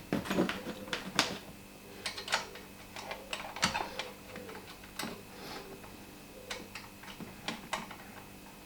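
Irregular light clicks and taps of a battery clamp and its fittings being worked into place over a car battery, over a faint steady hum.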